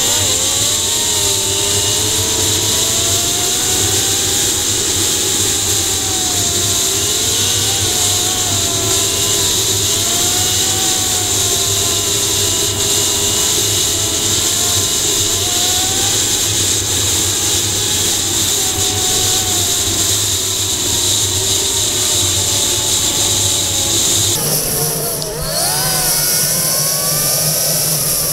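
1996 Yamaha Phazer snowmobile's two-stroke twin engine running at trail speed, its pitch wavering with the throttle over a steady high hiss. About 24 seconds in the pitch drops briefly as the throttle eases, then rises again as the sled accelerates.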